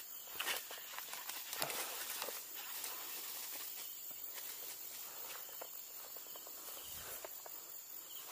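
Footsteps through grass and along a dirt track, irregular soft steps over a steady high outdoor hiss.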